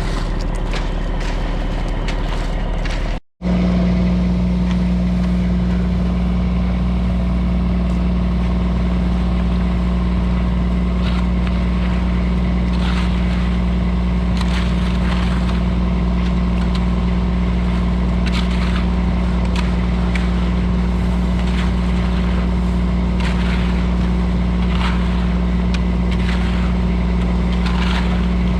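A large engine running steadily at constant speed, with an abrupt cut a little over three seconds in, then the same steady running resumes. Faint short scrapes or clinks come and go over it in the second half.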